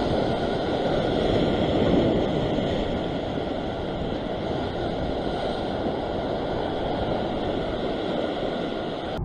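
Ocean surf breaking and washing over a rocky shore ledge: a steady rush of water that swells a little about two seconds in.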